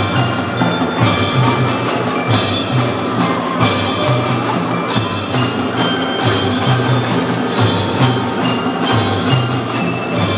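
Children's drum band playing a tune, with xylophones and marimbas carrying the melody over drums in a steady rhythm.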